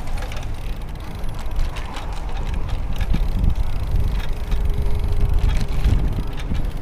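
Wind buffeting a helmet camera's microphone while a road bike is ridden, with tyre and road rumble and scattered small clicks and rattles; a faint steady tone runs for about two seconds around the middle.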